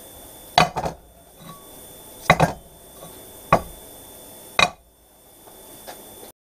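Heavy old steel bearings knocked and set down on a steel plate on a metal workbench, making about five metallic clunks spread over four seconds, some in quick pairs.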